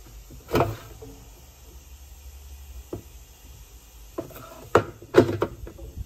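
Hand handling the plastic agitator in the tub of a Hoover Electronic 220M top-loading washing machine. There is a sharp knock about half a second in, then a cluster of knocks and rattles near the end.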